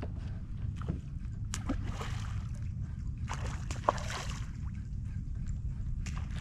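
Water lapping and sloshing against a fishing kayak's hull over a steady low rumble, with a few light clicks and knocks scattered through it.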